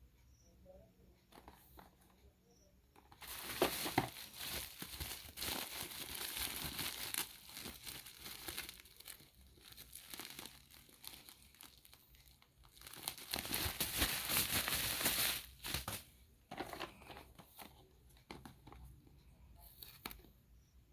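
Packaging being crinkled and torn open by hand, in two long spells of dense crackling about three seconds in and again around thirteen seconds in, with scattered handling clicks between.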